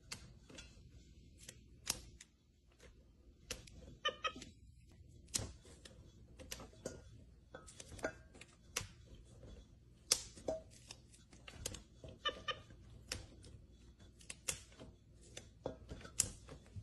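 Fresh green beans snapped by hand one after another: irregular sharp snaps, about one or two a second. A short pitched squeak comes twice, about four seconds in and again about twelve seconds in.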